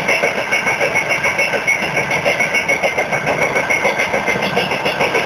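Freight train wheels running over the rails at speed, heard from aboard the moving train: a loud, continuous clattering rumble that pulses evenly about four to five times a second, with a steady high ringing tone over it.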